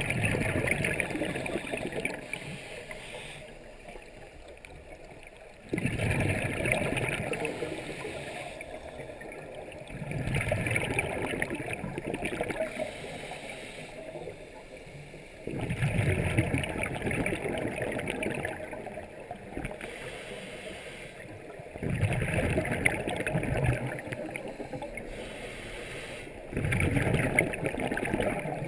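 A scuba diver breathing through a regulator underwater: six exhalations, each a couple of seconds of bubbling from the exhaust, about every five to six seconds, with quieter inhalations between.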